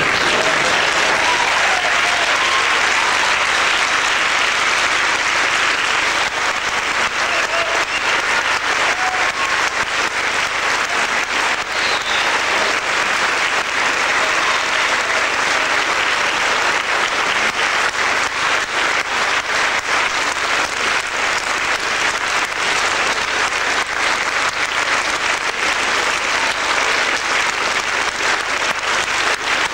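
A large audience applauding: a long, steady round of clapping that breaks out at once.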